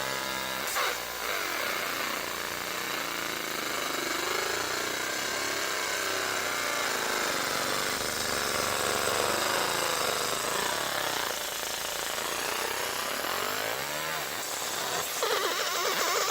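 CNC fiber laser marking machine engraving an aluminum mold: a buzzing whine that keeps sweeping up and down in pitch as the scanner traces the design, over a steady hiss.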